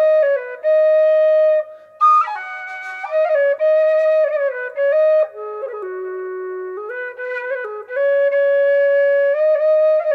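A solo flute playing a slow melody: long held notes joined by short stepwise runs, with a breathy attack about two seconds in and a dip to its lowest held note a little past the middle.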